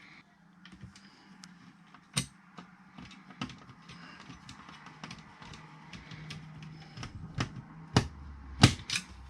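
Small screws being driven into the casing of a car radio/CD unit: a run of light clicks and taps over a low steady hum, with two sharper knocks near the end.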